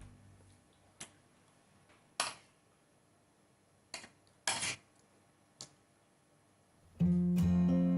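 Cutlery clinking against a bowl of instant noodles while eating: a handful of short, sharp clinks spaced out with quiet between. About seven seconds in, strummed acoustic guitar music starts and is louder than the clinks.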